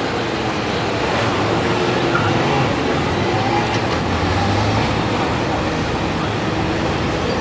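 Motorcycle engines running at low speed some way off, their faint hum under a steady noisy background.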